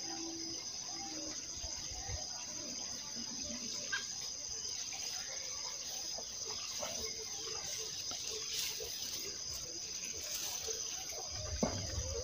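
Steady, high-pitched chirring of insects, with faint rustles and a few soft knocks near the end.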